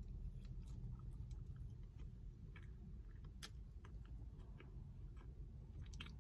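A person chewing a mouthful of sub sandwich, with small wet mouth clicks scattered through, over a faint low rumble.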